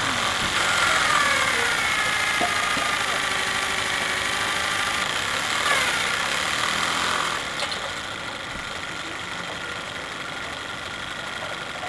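Steam winch on a 2-inch-scale Shay locomotive, driven by a small PM Research 5BI steam engine, running with a whine that glides up and down in pitch. About seven and a half seconds in the running sound drops away, leaving a quieter steady hiss.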